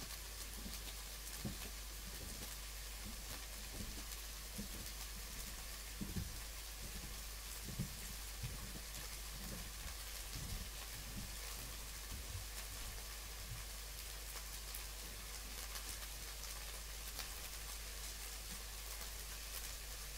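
Chicken and vegetable mince frying in a non-stick pan: a faint, steady sizzle, with a few soft low knocks in the first half.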